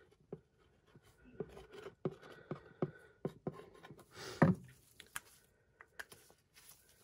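Gloved hands handling empty clear plastic ketchup bottles on a tabletop: scattered light taps and rubbing of thin plastic, with a louder knock about four and a half seconds in as a bottle is set down.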